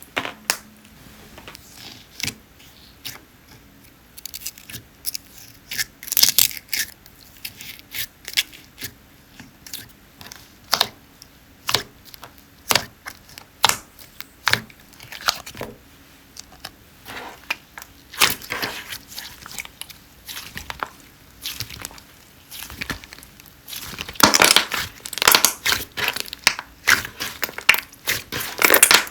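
Slime being squished, poked and stretched by hand, making irregular sticky clicks, pops and crackles, with two busier stretches of rapid crackling in the second half.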